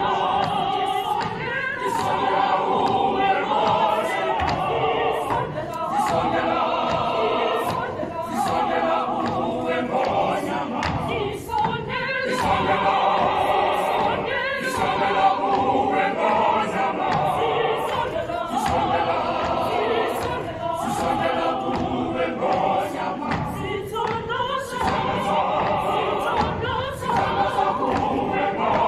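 A large South African choir singing together, many voices in full and continuous song, with short sharp percussive hits recurring through it.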